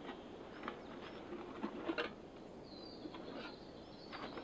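Rustling and a few scattered clicks and knocks as a Swedish military M39 backpack is handled, the loudest cluster about halfway through. A bird gives a short high whistle a little after the middle.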